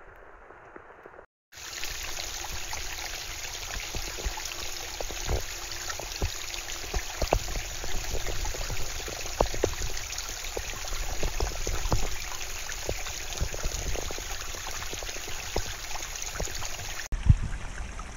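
Water running and trickling over rock in a wet mountain gully: a steady rushing with many small knocks and low thumps on top. It cuts in suddenly after about a second and a half and breaks off abruptly near the end.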